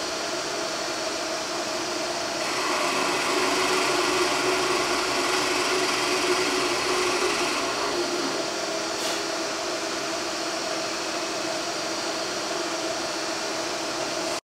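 A power tool's motor running steadily with a hiss, swelling louder for about five seconds a couple of seconds in, then settling back.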